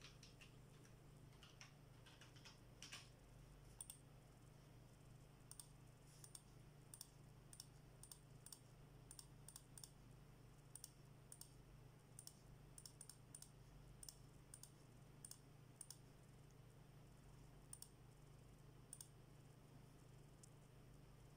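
Faint, irregular clicks of a computer keyboard and mouse over a steady low hum.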